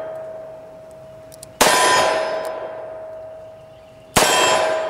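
Two shots from a Ruger LCR .357 Magnum snub-nose revolver, about two and a half seconds apart. Each sharp crack is followed by a steel target plate ringing with one clear tone that dies away over about two seconds.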